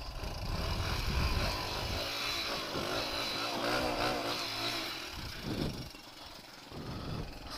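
A 2003 Suzuki DR-Z125's single-cylinder four-stroke engine runs under way, its pitch rising and falling with the throttle. It eases off and drops to a quieter note about six seconds in.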